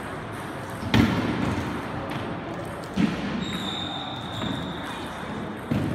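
Three dull thuds about two seconds apart, each echoing briefly in a large hall, the first the loudest. A faint steady high tone sounds for a couple of seconds in the second half.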